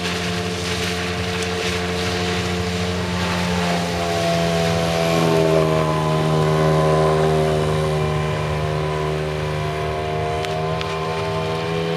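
5 hp outboard motor pushing an inflatable boat at speed: a steady engine drone that grows louder as the boat passes close about halfway through, then eases off slightly as it moves away.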